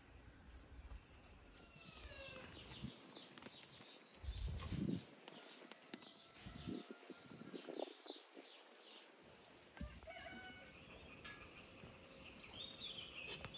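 Faint farmyard and countryside sounds: chickens clucking among many short, high wild-bird chirps, with a few soft low thumps.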